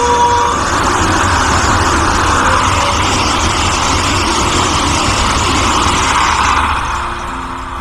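Vande Bharat Express electric multiple-unit train passing at speed: a steady rushing noise of wheels and air over a low rumble, dying down near the end. A horn's last note trails off at the very start.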